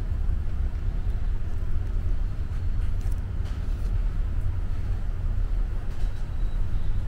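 Steady low rumble of background noise, with a few faint ticks and clicks over it.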